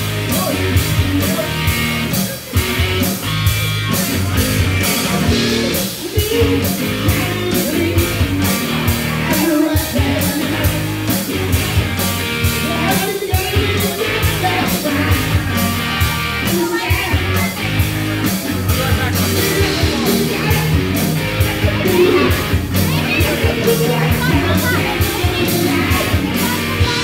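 Live rock band playing: electric guitar, bass guitar and a drum kit keeping a steady beat, with a singer at the microphone.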